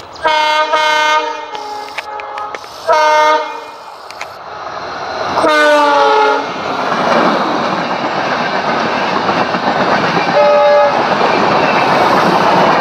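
WDP-4 diesel locomotive's multi-tone horn sounding several blasts as an acknowledgement from the loco pilot, the third dropping in pitch as the locomotive passes close by. It is followed by the loud steady rumble and clatter of the passenger coaches' wheels on the rails, with one more short horn note near the end.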